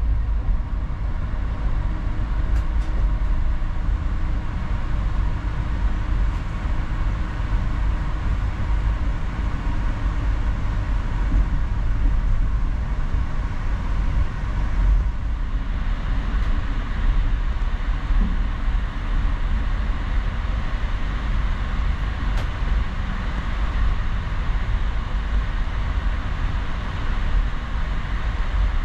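Indian Railways passenger train running, heard from inside the coach: a steady, deep rumble of wheels and running gear.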